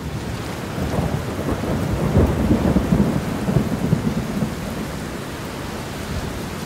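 Heavy rain falling, with a low rumble of thunder that swells about a second in and dies away after about four seconds, leaving steady rain.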